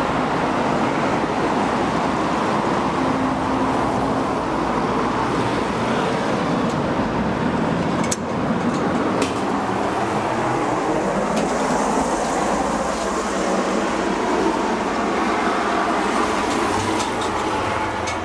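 Steady road traffic noise, with a few sharp clicks about eight and nine seconds in.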